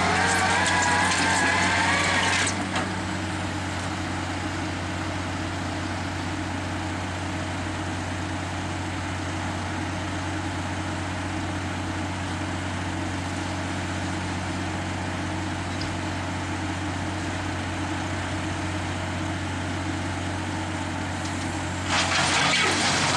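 Tracked drilling rig's diesel engine running steadily while its earth auger turns, with a high wavering squeal for the first two or three seconds. Near the end a loud rush as soil and gravel are spun off the raised auger into a loader bucket.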